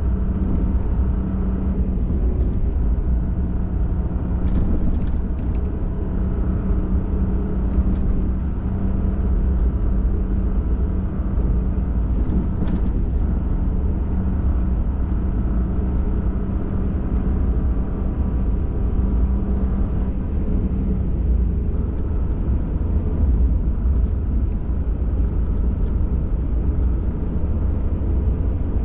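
Ford F-150 Raptor driving along a trail: a steady engine and tyre rumble with a constant low drone that fades out about twenty seconds in, and a few light knocks and rattles.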